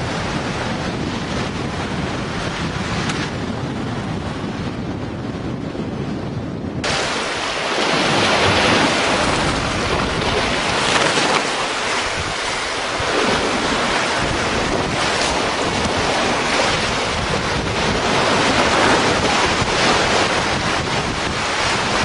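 Wind buffeting the microphone over the rush of water along a sailing catamaran's hulls, with no voices or engine. About seven seconds in the sound changes abruptly to a brighter, slightly louder hiss.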